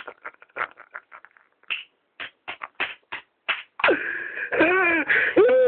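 A man laughing helplessly: a quick string of short, breathy wheezes, then about four seconds in a loud, high, squeaky laugh whose pitch slides up and down.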